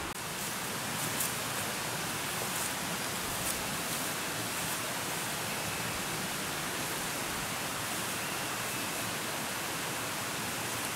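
Steady forest ambience: an even hiss with a few faint high ticks.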